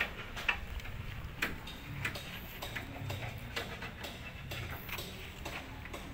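Light ticks, about two a second, over a low background rumble.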